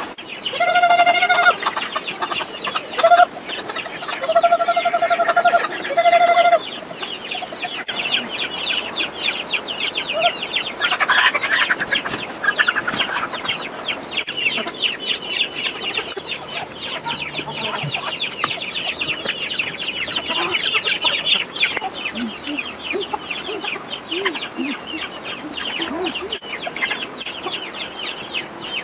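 Chickens feeding from baskets of rice: four drawn-out pitched calls in the first seven seconds, then a dense, busy run of clucking and chattering from the flock.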